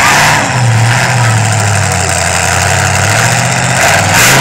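Monster truck engine running loudly, its low drone rising and falling in pitch as it is revved.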